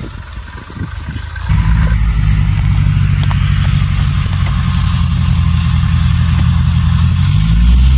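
An engine running steadily with a loud low hum. It starts about a second and a half in, rises slightly in pitch near the end, and cuts off abruptly.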